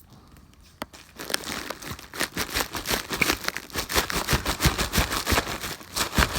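Packaging crinkling and rustling in a dense, irregular run of crackles as tightly packed items are wrestled out of a box, starting about a second in.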